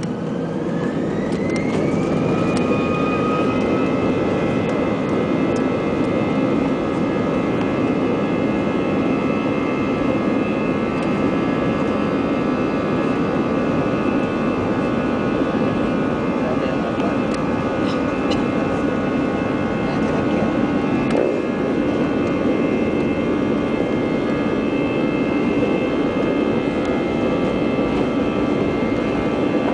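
Airbus A320's twin turbofan engines heard from inside the cabin, spooling up to takeoff thrust: a whine rises in pitch over the first few seconds and then holds steady over a loud rumble as the airliner accelerates down the runway on its takeoff roll.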